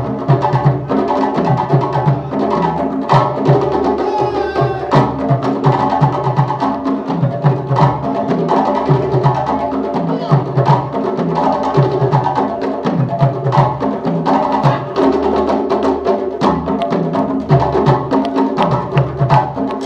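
Live African hand-drum ensemble, a djembe among the drums, playing a fast, steady rhythm.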